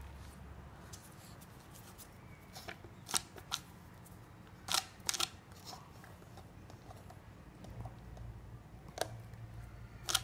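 Irregular sharp clicks and taps of dry dog kibble against a small plastic medicine bottle, about eight in all, bunched around three and five seconds in.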